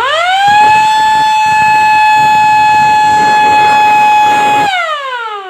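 MS-290 electric motor siren, a 220-volt metal inauguration siren, spinning up quickly to one steady high pitch and holding it for about four seconds. It is then switched off and winds down with a steadily falling pitch.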